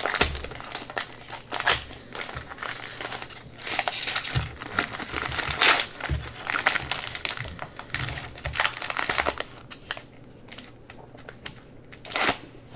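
Foil trading-card pack wrapper crinkling as hands pull it open and work the cards out, in a run of irregular crackles that thin out near the end before one last burst.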